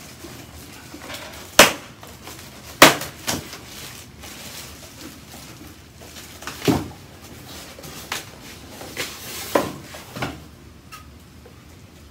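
Electric trailer tongue jack and its loose parts being handled. There are irregular sharp knocks and clatter, the two loudest within the first three seconds and several lighter ones after.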